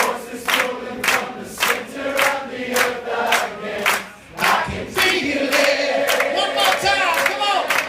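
Concert audience clapping in a steady rhythm, a little under two claps a second, with many voices singing and shouting along.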